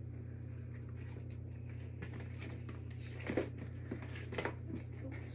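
Rustling and light tapping of small packets and wrappers being handled and packed into a bag, with a couple of louder taps in the middle. A steady low hum from a spinning ceiling fan runs underneath.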